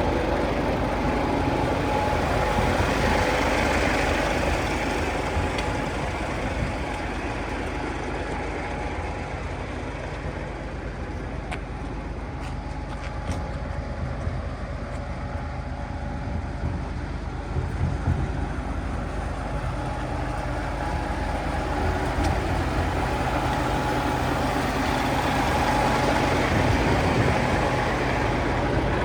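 Hino FM700 concrete mixer truck's diesel engine running steadily at idle, with a faint steady whine over the rumble.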